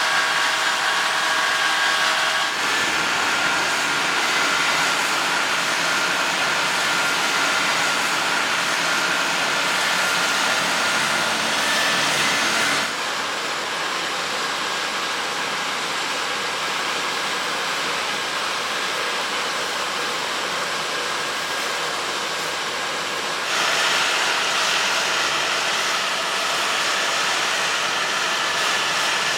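John Deere X9 1100 combine harvester running steadily while harvesting wheat: a dense machine noise with a few faint steady whining tones. Its tone and loudness change abruptly three times, dropping about halfway through and rising again near the end.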